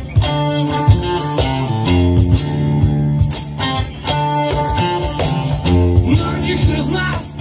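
Live band playing an instrumental passage: strummed acoustic guitar and electric guitar, with chords changing about every second over sharp percussive hits.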